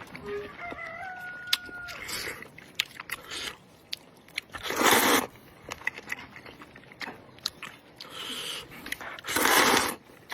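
Noodles slurped loudly twice, about five seconds in and again near the end, with small chewing and biting clicks between. A rooster crows faintly in the first two seconds.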